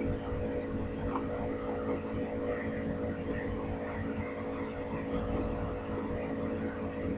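Steady background hum and hiss, with several steady low tones.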